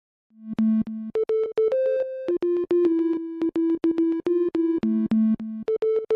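Background music: an electronic synthesizer melody of held notes with a steady beat.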